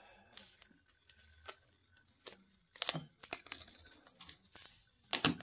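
Handling noises from connecting computer cables and peripherals: scattered clicks and knocks with some plastic rustling, busiest about three seconds in and again near the end.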